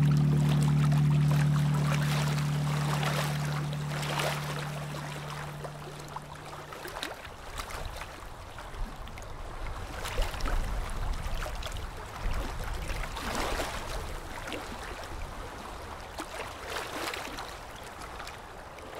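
Sustained background music notes fade out over the first several seconds, leaving river water lapping and splashing irregularly, with a low wind rumble on the microphone.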